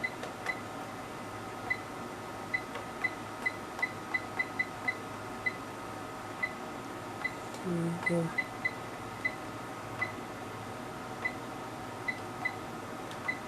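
Electronic bench test instrument beeping: about two dozen short, high beeps at irregular intervals, sometimes several in a second, over a steady electronic hum and hiss.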